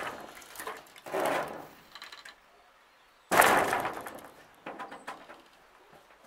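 Plastic-panelled greenhouse door being swung shut: a couple of rattling scrapes, then a sudden loud clattering bang about three seconds in that dies away over a second, and a few lighter knocks after.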